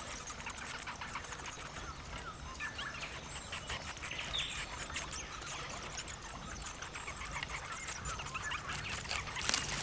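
Spectacled flying foxes squeaking and chattering in scattered short calls over a steady background hiss, with a sharp rustle near the end.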